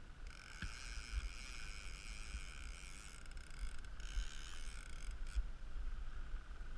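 Small outboard motor running steadily at slow trolling speed, with a fishing reel cranked in two spells as a hooked lake trout is brought toward the boat.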